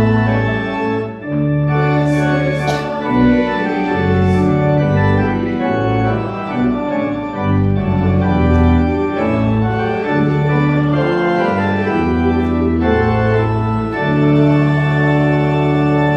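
Church organ playing slow, full sustained chords over a moving bass line.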